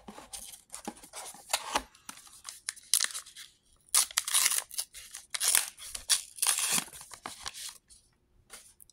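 Paper wrapper of a trading-card booster pack being torn open and crinkled, a string of irregular crackling, rustling bursts that ease off near the end.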